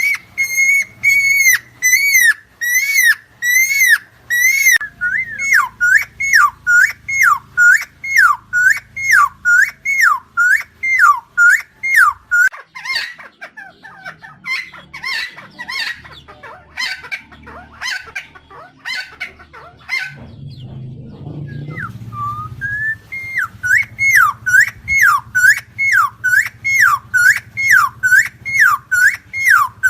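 Helmeted friarbird (cucak timor) calling a long run of repeated notes, about two a second, each dipping and rising in pitch. Near the middle it switches for several seconds to different, shorter notes and pauses briefly, then the repeated notes resume.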